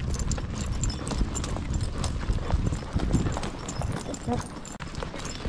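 A dog walking on leash along a paved sidewalk, heard close up from its vest: a running clatter of quick clicks and clinks from the metal clips on its harness and its steps, over low rumbling handling noise.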